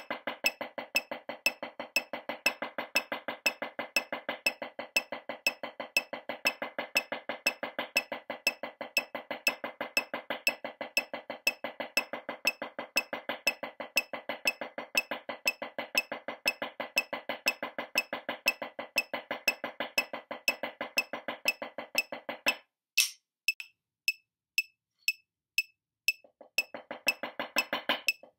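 Wooden drumsticks playing fast, even eights (eight strokes on each hand in turn) on a drum practice pad, over a steady metronome click. About three-quarters of the way through, the strokes stop for about four seconds, with one sharp click, leaving only the metronome ticking, and the playing starts again near the end.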